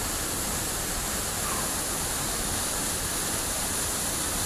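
Waterfall pouring into a pool: a steady, even rush of water. The falls are running high, still swollen after a flood.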